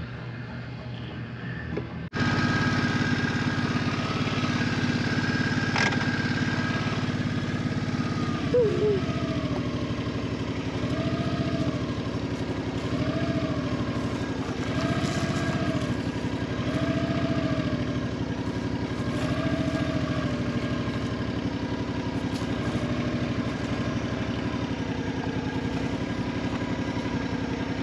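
A Suzuki Boulevard C50T's V-twin engine running steadily at low speed, starting abruptly about two seconds in.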